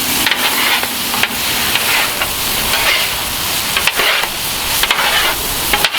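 Liquid egg and hot breakfast sausage sizzling on a Blackstone griddle's hot steel cooktop while a spatula stirs and scrambles them, with a few sharp taps of the spatula against the steel.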